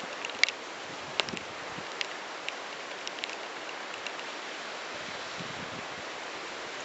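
Steady outdoor hiss of wind through garden foliage, with scattered short, sharp ticks, most of them in the first few seconds.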